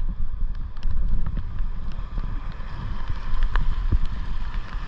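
Wind buffeting an action camera's microphone, a fluctuating low rumble, with a couple of short knocks from the camera being handled on the rocks near the end.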